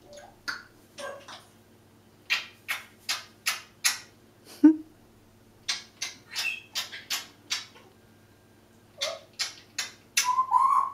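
Congo African grey parrot making a series of short, sharp clicking noises in quick runs of four or five, ending with a brief wavering whistle-like tone.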